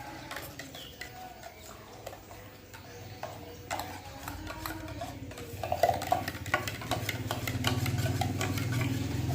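A spoon stirring liquid in a vessel, clinking and scraping against its sides, as baking soda's foam is stirred down in a salt and alum solution. A low steady hum gets louder from about halfway.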